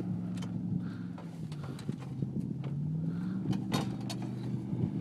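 An engine running steadily at a low speed; its pitch sags about a second in and climbs back up around three seconds in. A few sharp clicks sound over it.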